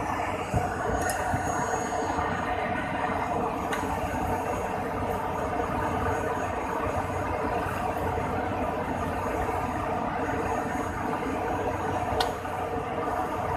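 Steady mechanical running noise of an Airbus A300-600 on the ground during an operational check, a constant hum with level tones. A few sharp clicks stand out: about half a second in, near four seconds, and near the end.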